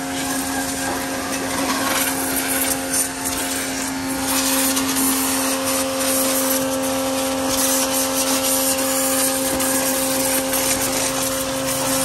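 Kapicon KP 40 pressure washer running steadily, its motor giving a constant hum under the hiss of the high-pressure water jet as it sprays the tractor's wheel and body.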